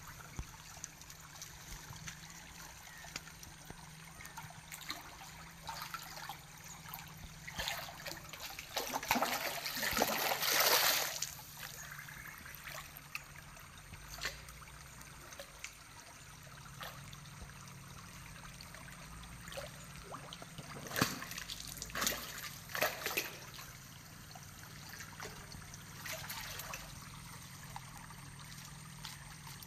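Water trickling and splashing as a hooked catfish struggles at the surface of shallow water, with a longer, louder bout of splashing about ten seconds in and a few shorter splashes a little after twenty seconds.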